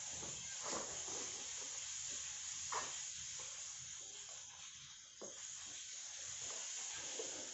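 A plastic rice paddle scraping and knocking in an aluminium rice-cooker pot a few times, over a steady hiss.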